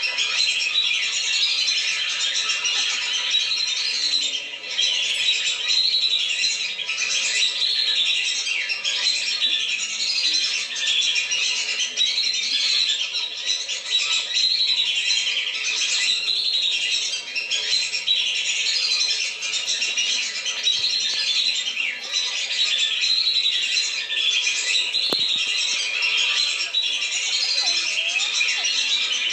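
A flock of whistling ducks (belibis) calling continuously, a dense, unbroken chatter of high whistled calls, used as a lure call to draw the birds down. A single sharp click about 25 seconds in.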